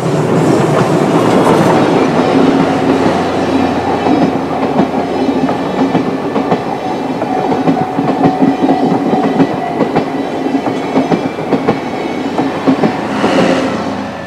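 Steam train, a C57 locomotive hauling the SL Banetsu Monogatari coaches, passing close by over a level crossing. It is loudest in the first couple of seconds as the locomotive goes by, then the coaches' wheels clack steadily over the rail joints. The sound falls away as the last car passes near the end.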